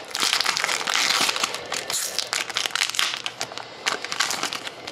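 Shiny trading-card pack wrapper crinkling as it is torn open by hand. It is loudest and densest for the first two seconds or so, then turns to lighter, scattered crackles.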